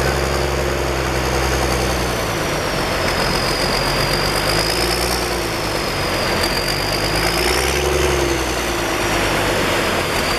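Engines idling steadily, with a strong low hum for the first couple of seconds that then drops back. A high whine drifts up and down in pitch throughout, over a constant rushing noise.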